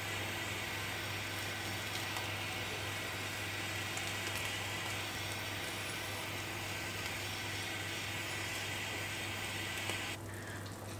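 Handheld kitchen blow torch burning with a steady hiss as its flame browns the custard top of a tart, cutting off about ten seconds in.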